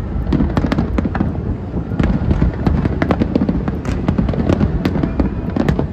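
Aerial fireworks barrage: many rapid, overlapping sharp cracks of bursting shells over a continuous low rumble.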